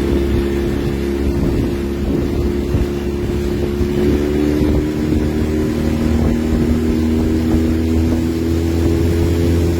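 Boat engine running steadily at constant speed, a low rumble with a steady hum above it.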